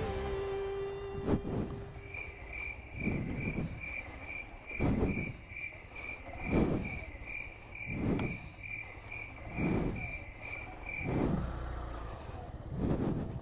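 A cricket-like insect chirping in a high, even pulse, about two or three chirps a second, stopping about eleven seconds in. Low swells of sound come and go about every second and a half.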